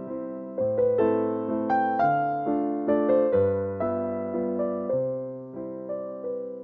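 Background music: a gentle piano melody of notes that strike and fade, over held bass notes.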